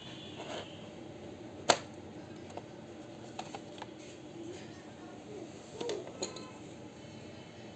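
Small clicks and taps of hands working on a laptop's plastic case and parts, with one sharp click about two seconds in and a few lighter clicks later, over a low steady background hum.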